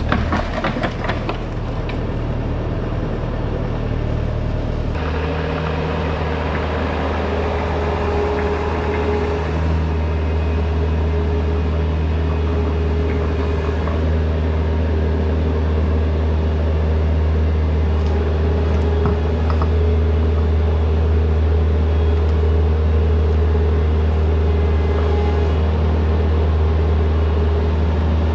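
Compact track loader's diesel engine running steadily while its pallet forks lift a basket of river stone, with a few metal clanks in the first second or so. About five seconds in, the engine note shifts and a steady whine sets in over the engine.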